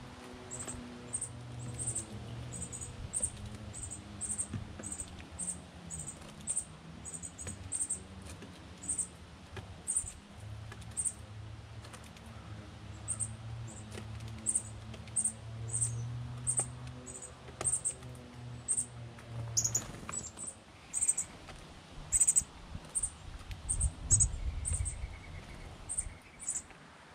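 Birds feeding on sunflower seeds on a wooden rail, with short tapping and pecking sounds. Short, very high chirps repeat about once or twice a second over a steady low hum.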